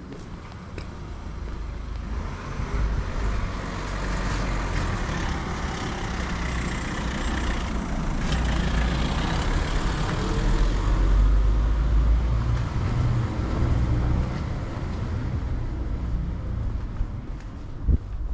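A motor vehicle passing close by: its noise builds over several seconds, is loudest around the middle and then fades. A single sharp knock comes near the end.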